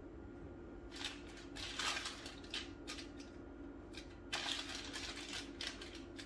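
Hands pulling apart and working soft hamburger-bun dough against a stainless steel bowl: irregular scraping, rubbing noises in two spells, starting about a second in and again a little past four seconds.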